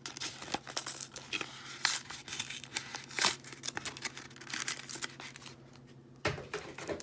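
Foil booster-pack wrapper for a Yu-Gi-Oh card pack being crinkled and torn open by hand, in irregular crackles. The crackles go quieter about five seconds in, then a loud rustle comes near the end.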